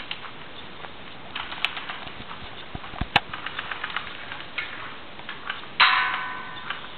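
Irregular crackling and rustling of footsteps and handling as the camera is carried through forest leaf litter, with a couple of sharp clicks. Near the end a sudden loud hit rings and dies away over about a second, the loudest sound here.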